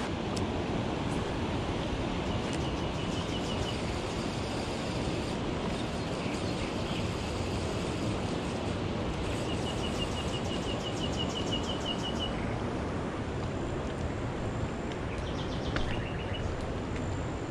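Steady rush of river current flowing past the weir outflow, with a high bird trill heard briefly a few times over it.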